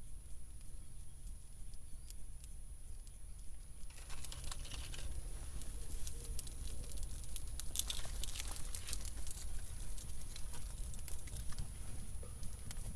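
A flaming tinder bundle crackling and rustling as it is handled and set down into a fire hole, starting about four seconds in as a dense run of irregular small crackles.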